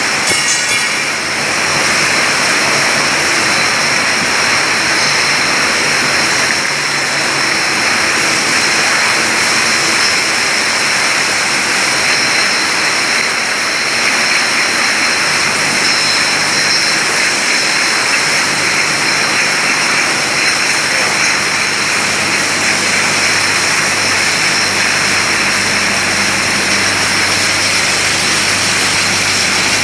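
Steady, loud din of bottling-line machinery: bottle conveyors and a rotary filling machine running, with a high whine held throughout and a low hum coming in about halfway.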